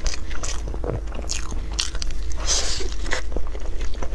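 Close-miked eating of a soft sponge cake roll with a purple filling: irregular wet biting and chewing clicks and squishes, with a longer, noisier bite about two and a half seconds in.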